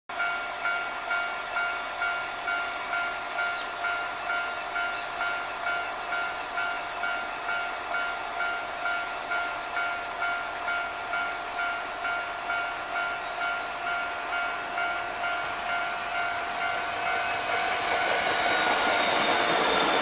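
Railway level-crossing warning bell ringing with evenly repeated electronic dings, about two a second. Near the end, the running noise of an approaching Hankyu 1300 series train rises over the bell as the train reaches the crossing.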